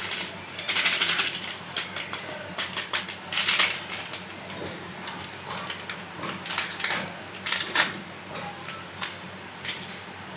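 Boiled beef pieces frying in hot oil in a metal pan, crackling and spitting in irregular bursts.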